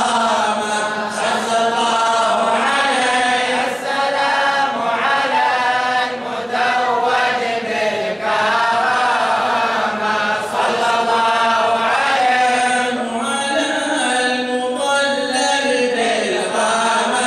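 Men's voices chanting Arabic devotional praise of the Prophet in a continuous melodic line, a mawlid recitation.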